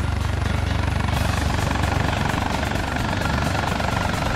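Helicopter in flight, its rotor blades giving a steady, rapid chop. The sound becomes brighter and hissier about a second in.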